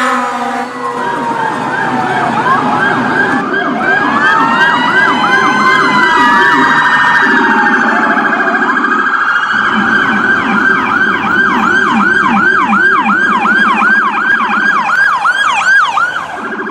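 Electronic emergency sirens sounding together: a fast yelp repeating about three times a second over slower wails that rise and fall, loud throughout.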